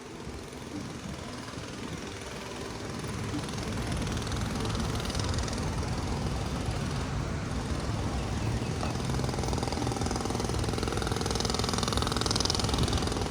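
Vehicle running with steady engine and road noise, a deep rumble that builds over the first few seconds and then holds steady, as if picking up speed.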